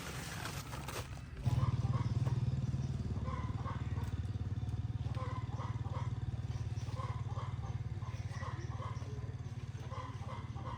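A small engine starts running suddenly about a second and a half in and keeps running at a steady idle, with short chirping calls repeating over it.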